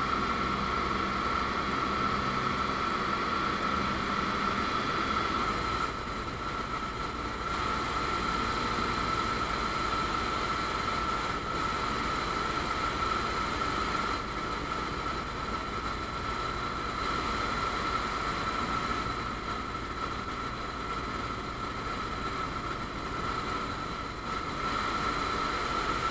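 Ultralight aircraft engine and propeller droning steadily, heard from inside the cockpit in flight. The drone drops a little about six seconds in and comes back up near the end.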